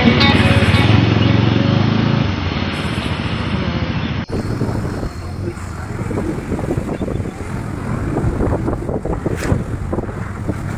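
Wind buffeting the microphone over the running noise of a moving motorcycle, gusting unevenly. About four seconds in, an abrupt cut changes the sound.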